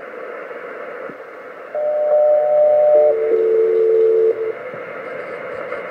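Kenwood TS-450S HF receiver on upper sideband hissing with band noise. About two seconds in, a SELCAL call comes through: a higher pair of steady tones sounding together for about a second and a half, then a lower pair. This is the two-tone-pair code that an HF air traffic control ground station sends to call one particular aircraft.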